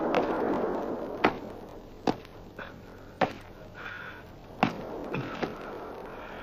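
Gunshots in a film soundtrack: four loud single sharp shots a second or so apart, with a few fainter cracks among them, after a noisy rush that dies away in the first second and a half.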